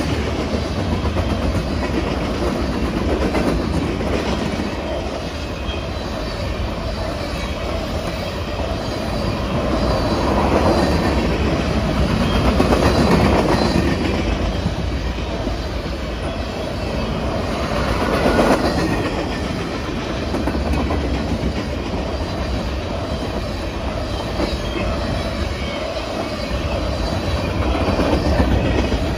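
Empty freight cars, open-top hoppers and gondolas, passing at about 50 mph: their steel wheels run on the rails in a steady rumble that swells several times as the cars go by.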